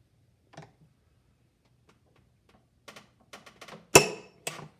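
Split-beam click-type torque wrench, set to 130 ft-lb, pulled against a digital torque tester. A run of light ticks comes first, then one sharp click with a brief ring about four seconds in as the wrench breaks over at its set torque, and a smaller click half a second later.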